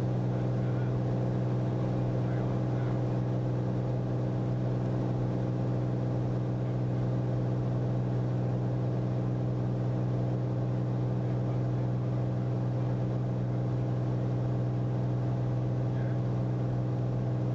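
Cirrus SR22T's turbocharged six-cylinder engine and propeller droning steadily at climb power, heard inside the cabin as an even low hum.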